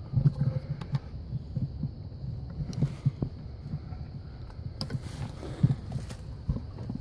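Hurried footsteps crunching through dry leaves and twigs, with a constant low rumble and irregular knocks from the handheld camera as it is carried along.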